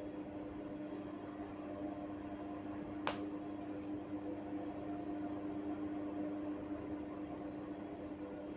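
One sharp crack from a hair- and neck-cracking head massage about three seconds in, with a fainter tick or two just after, over a steady machine hum.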